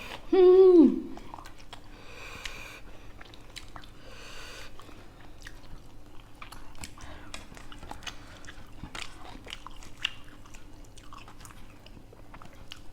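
People chewing and biting food, with many small mouth clicks and smacks. A brief loud vocal sound with falling pitch comes about half a second in.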